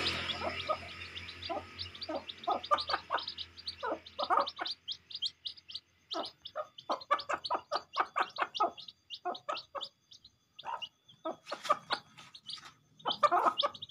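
Ayam kampung chicks peeping over and over in short, high chirps that slide downward, with the hen's lower clucks mixed in, as they feed on scattered rice.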